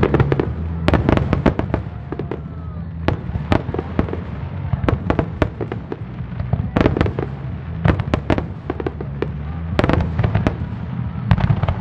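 Aerial fireworks shells bursting in a rapid barrage: many sharp bangs and cracks, some in quick clusters, over a steady low rumble.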